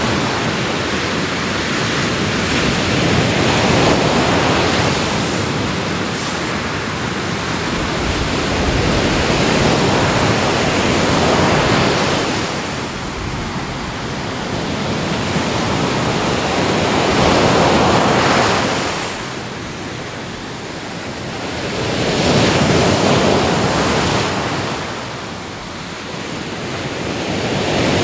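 Ocean waves breaking and washing up the shore, the rush of water swelling and ebbing every five or six seconds.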